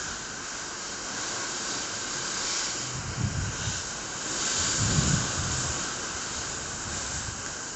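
Rough sea and wind: a steady rushing hiss that swells about halfway through, with wind buffeting the microphone twice.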